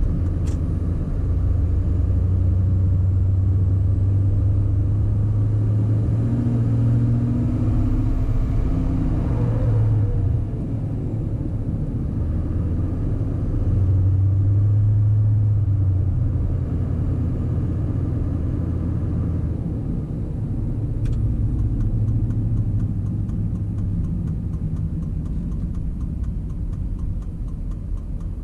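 Duramax 6.6 L V8 turbodiesel pickup driving: a steady low engine and road drone that eases off about ten seconds in and swells again a few seconds later.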